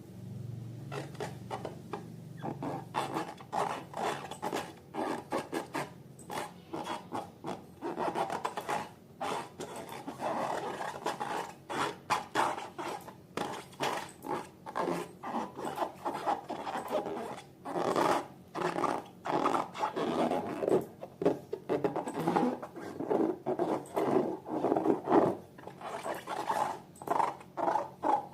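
Homemade balloon slime being squeezed and kneaded by hand: a dense, irregular run of sticky squelches, crackles and small pops. It gets louder after the first few seconds, and near the end it settles into quicker, evenly spaced squishes.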